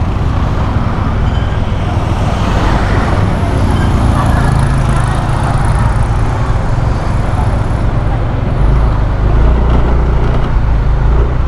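Steady wind rush over the microphone and road noise of a Yamaha NMAX 155 scooter being ridden along a highway.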